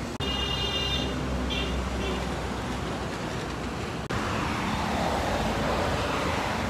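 Roadside traffic noise: a steady low rumble of passing vehicles, with a few short high-pitched tones in the first two seconds. The rushing noise grows louder in the second half.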